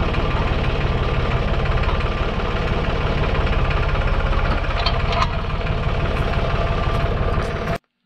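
Farm tractor engine idling steadily with an even low pulse, stopping abruptly near the end.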